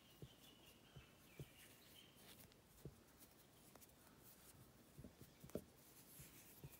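Near silence with a handful of faint, soft taps and rustles from a knitting needle and wool yarn as stitches are cast on.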